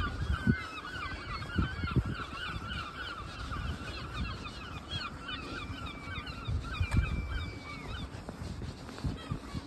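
A flock of geese calling: many overlapping honks and chattering calls throughout, with a few low thumps of footsteps on the pavement.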